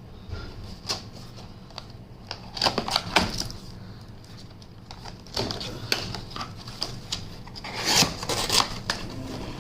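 Cardboard laptop box being opened and handled: scattered knocks, taps and rustles, coming in short clusters a few times.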